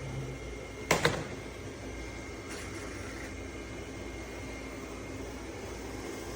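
Roborock Qrevo Curv S5X robot vacuum running with a steady whir, with a sharp double knock about a second in.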